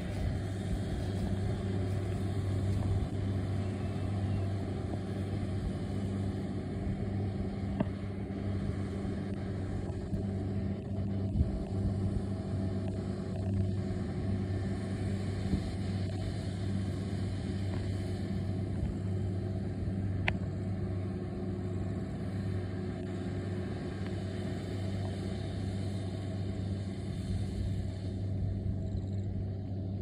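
Tractor engine and New Holland ProBelt round baler at work, a steady low drone.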